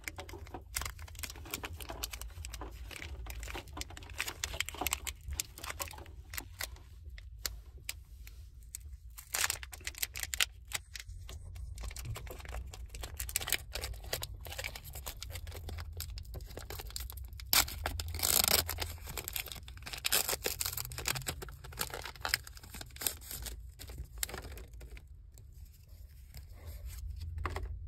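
A Pokémon card booster pack's foil wrapper being torn open and crinkled, then the cards rustling and sliding against each other as they are handled, in many short crackles with denser bursts in the second half. A steady low hum sits underneath.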